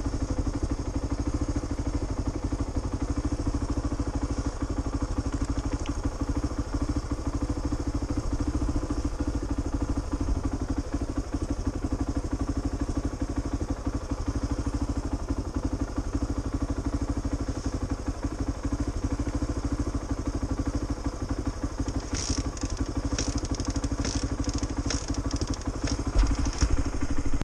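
Motorcycle engine idling steadily at an even pitch. From about 22 seconds in there is a run of sharp clicks and clatter, and a heavy thump comes a second before the end.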